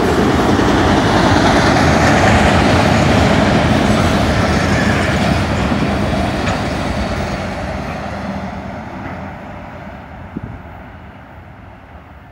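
Union Pacific autorack freight cars rolling past at speed, steel wheels running on the rails. The sound is loud at first, then fades away over the second half as the end of the train passes and goes off into the distance.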